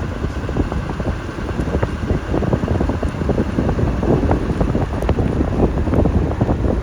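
Wind buffeting an outdoor action-camera microphone: a steady low rumble with a constant irregular crackle of gusts.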